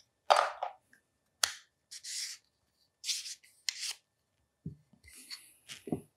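Hands working a plastic sleeve off a Sirui ET2204 carbon-fibre tripod leg tube: a series of short scrapes and rubs with a sharp click about one and a half seconds in. Near the end come two dull knocks as the leg sections are set down on the towel-covered table.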